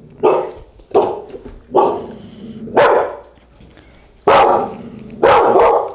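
Young Australian Shepherd puppy barking, about six sharp barks at uneven intervals, the last two longer and louder. It is fearful, suspicious barking at something new.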